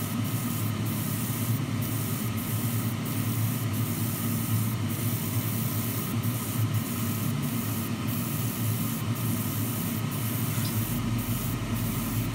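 Airbrush spraying thin gloss black paint in light mist coats: a steady hiss of air and paint, with brief dips in the hiss about once a second, over a steady low hum.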